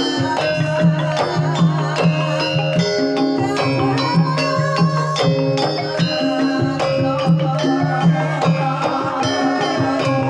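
Javanese gamelan music playing a gendhing: bronze metallophones ringing in changing notes over low sustained tones, with frequent sharp percussive strokes keeping a steady beat.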